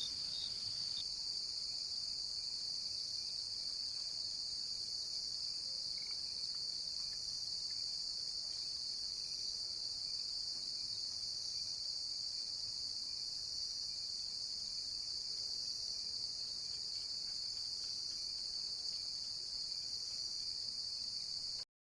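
Steady night chorus of crickets chirping, a continuous high-pitched trill that stops abruptly near the end.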